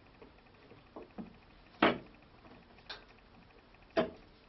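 Sharp knocks and clicks of a motorcycle grab rail being handled and set into place on the rear bodywork, a few separate knocks with the loudest about two seconds in and another near the end.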